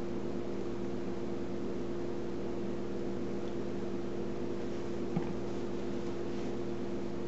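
A steady mechanical hum with a few fixed tones over a light hiss, and one small click about five seconds in.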